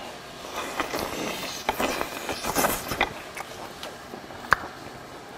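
Mouth noises of a man eating a mouthful of hot boiled chicken, slurping and chewing with breathy huffs for about three seconds. A single sharp click comes near the end.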